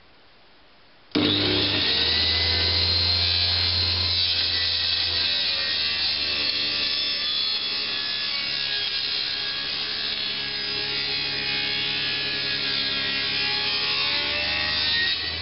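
Table saw starting abruptly about a second in and running steadily, ripping the edge of a maple and walnut cutting board to true it square.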